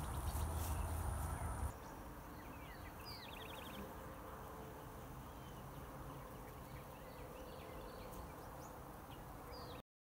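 Honeybees buzzing as a faint steady hum around the hive, with birds chirping and a short trill. A louder low noise fills the first second or two before a cut, and the sound stops abruptly just before the end.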